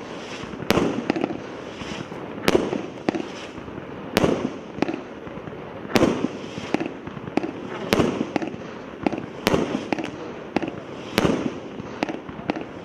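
300-shot firework cake of mixed 0.8, 1 and 1.2 inch calibres firing steadily: a sharp bang about every one and a half to two seconds, with smaller pops and crackle in between.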